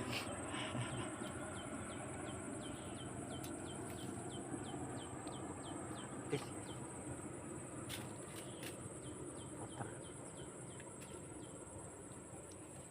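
Outdoor insect and bird ambience: a steady high insect drone with a quick series of short, falling chirps, over a low, even rushing noise.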